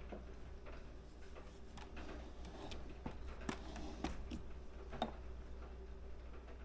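Faint scattered clicks and light knocks of espresso equipment being handled, over a steady low hum.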